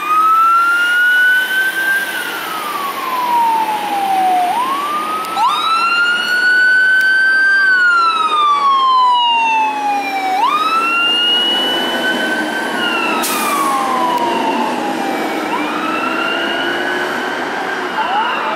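Fire apparatus electronic sirens on the wail setting, rising and falling in slow sweeps of a few seconds each as the trucks respond. In the later part a second siren overlaps the first, with a truck's diesel engine pulling away beneath.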